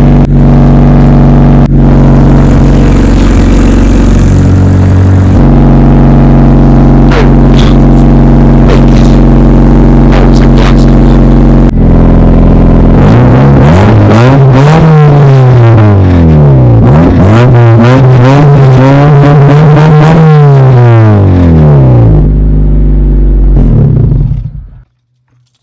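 Honda Civic engine running with its muffler removed, loud and steady for about the first half. It is then revved up and back down twice, and the sound cuts off near the end.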